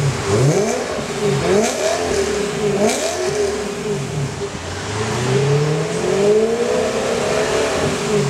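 BMW M3 E92's 4.0-litre V8 revved at standstill through an Akrapovič Evolution titanium exhaust with a Capristo valved rear section. Several quick blips with a couple of sharp cracks come first, then one longer rev climbs over about three seconds and falls back near the end.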